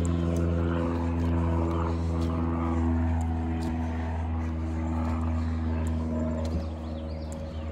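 Steady low drone of a vehicle engine, a constant hum with a few fixed tones above it, heard from inside the car, with a few faint clicks.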